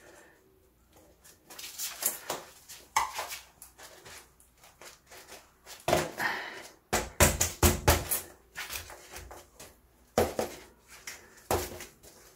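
Gloved hands forcing the last tight section of a bicycle tyre bead over the rim by hand: rubber rubbing and scraping on the rim, with scattered clicks. A run of loud knocks and thumps about six to eight seconds in, and another near the end, as the wheel is shoved and handled.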